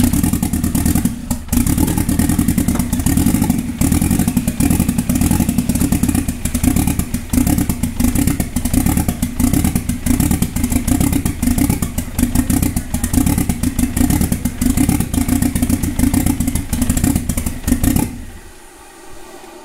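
Four-cylinder engine of a long-dormant VW running just after starting, with no intake piping fitted, so it runs rough. It shuts off suddenly about 18 seconds in.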